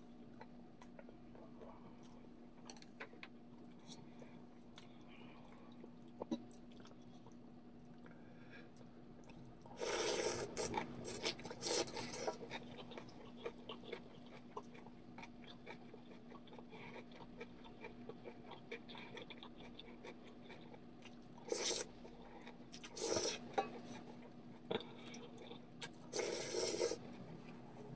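A person eating instant ramyeon, loudly slurping the noodles in several short bursts: a long one about ten seconds in and shorter ones near the end. Between the slurps there is quiet chewing and light clicks of chopsticks and spoon on the metal pan, over a steady low hum.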